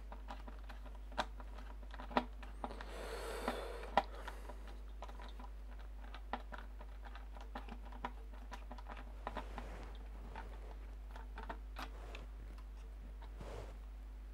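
Scattered light clicks and taps of a screwdriver and small metal parts while a CPU cooler's mounting screws are undone, with a brief soft rustle about three to four seconds in.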